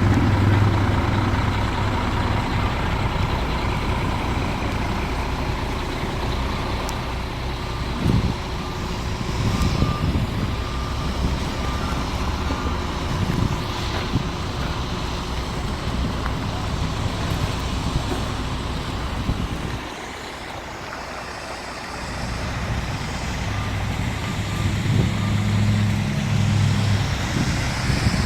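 Diesel engine of heavy construction equipment running, with a backup alarm beeping over the first several seconds. The engine drops off for a moment and comes back louder near the end.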